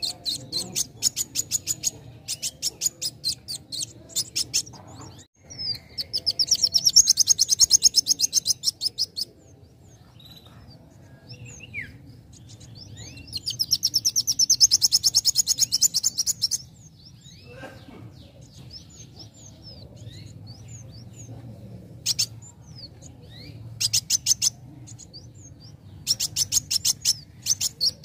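Young male van Hasselt's sunbird (kolibri wulung) singing: runs of very fast, high-pitched trilling ticks. Two long, loud trills a few seconds in and near the middle, with short chirps scattered between them.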